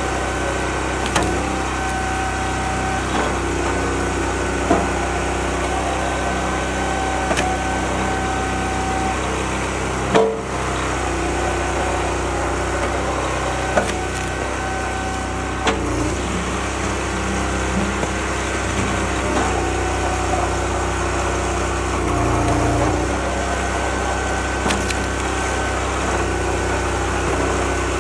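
Small gas engine of a homemade hydraulic log splitter running steadily, with a whine that comes and goes in stretches of a few seconds. Sharp cracks of oak splitting on the wedge come several times, the loudest about ten seconds in.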